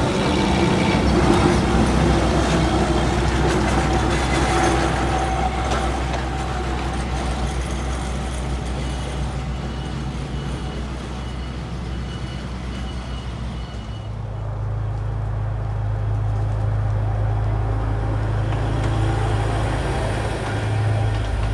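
Steady low engine hum of a running vehicle, with a noisy background; the hum shifts to a different, stronger pitch about fourteen seconds in.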